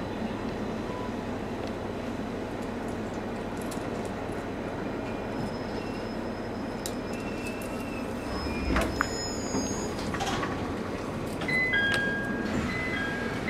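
Steady hum of an electric commuter train standing at a station platform, with a single thump about nine seconds in. Near the end a two-note electronic chime starts and repeats.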